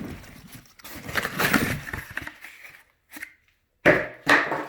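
Cardboard packaging being torn and handled in a few noisy bursts, with a short break before a final louder burst near the end.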